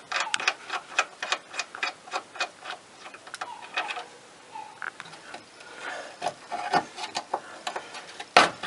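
Hand ratchet clicking rapidly, about five or six clicks a second, as a bolt on the rear suspension arm is unscrewed. The clicking eases off briefly around the middle, then resumes, with one louder knock near the end.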